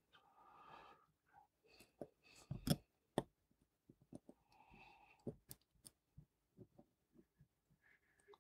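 Faint, scattered small metal clicks and taps of fine watchmaking tools working on a hand-wound watch movement while the click and click spring are being removed, with a few sharper ticks around three seconds in.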